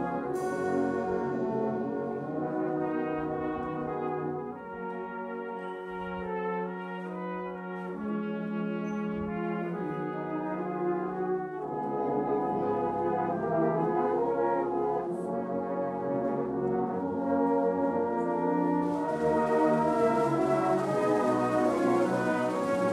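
Brass band of cornets, horns, euphoniums and tubas playing a slow hymn tune in full chords, softer for a few seconds and then growing louder from about halfway through, and louder again near the end.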